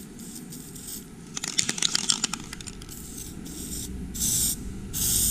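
Aerosol can spraying graphite onto a metal sheet in short hissing bursts, two of them near the end. A quick run of sharp rattling clicks comes in the middle.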